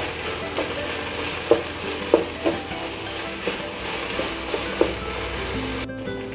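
Sliced okra sizzling in a nonstick pan while a wooden spatula stirs it, with short scrapes and knocks of the spatula against the pan. Near the end the sizzle breaks off abruptly and comes back quieter.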